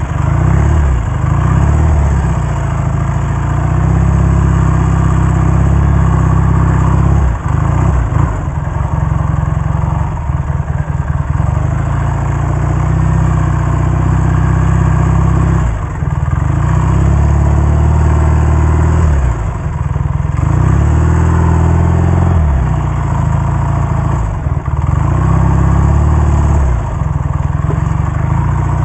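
1967 Triumph Bonneville T120R's 650 cc parallel-twin engine under way, heard from the rider's helmet. The engine note drops and rises again several times as the throttle is closed and reopened.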